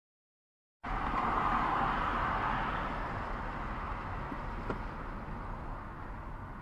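Steady road and engine noise of a car driving, picked up by the dashcam inside the cabin, cutting in abruptly about a second in and slowly fading. A faint click comes about four seconds in.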